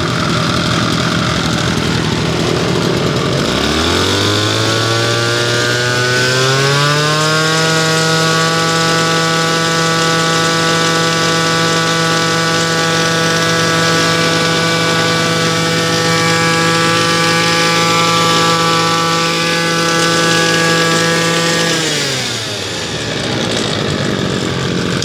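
Kioritz (Echo) SRM2501D two-stroke brush-cutter engine idling, then throttled up with a rising whine about three and a half seconds in to a high, steady speed. It holds there for some fifteen seconds and drops back to idle near the end. Runs very smoothly at speed.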